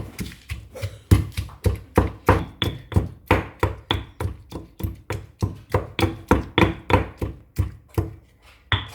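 Pestle pounding ginger and garlic in a mortar: steady, even knocks at about three strokes a second, a few with a brief high ring.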